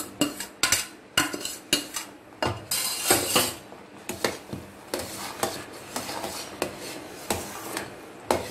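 Metal spoon stirring thick semolina kesari in a metal pan, scraping and clinking against the pan's sides and bottom in quick, irregular strokes.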